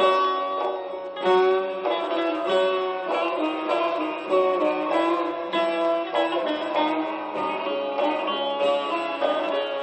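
Instrumental passage of a Turkish folk song (türkü) recording, led by plucked string instruments playing the melody, with no singing.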